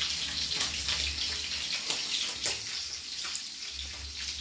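Kitchen knife cutting through an onion held in the hand, a few sharp cuts over a steady hiss.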